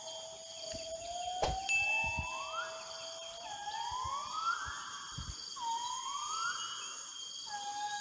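A series of rising whooping calls. Each climbs steadily in pitch for about a second and then breaks off, and the calls repeat about every second and a half over a steady high-pitched whine.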